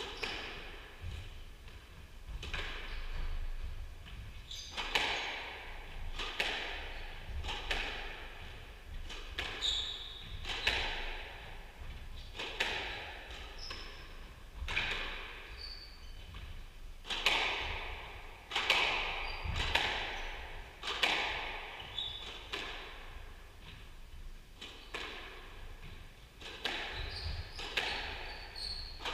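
Squash rally: the ball cracking off rackets and the court walls, each hit with a short echo, at irregular intervals often less than a second apart, with a few brief high squeaks of shoes on the court floor.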